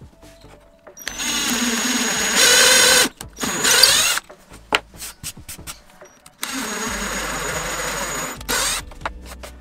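Power drill boring 7.5 mm holes into plywood, in two runs of about three seconds each with a steady high motor whine; the first run gets louder in its second half as the bit cuts deeper.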